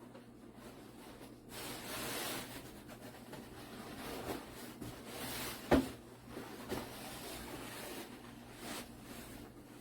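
Rubbing and rustling of a felt puzzle mat being handled and rolled up around an inflated plastic tube, with a few soft knocks and one sharp, louder knock about six seconds in.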